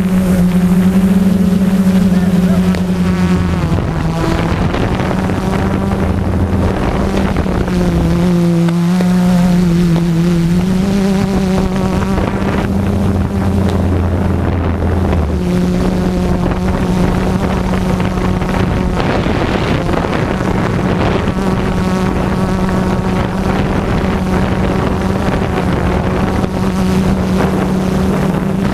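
Quadcopter drone's motors and propellers buzzing steadily, with a brief shift in pitch about eight seconds in as the drone manoeuvres; wind noise on the microphone.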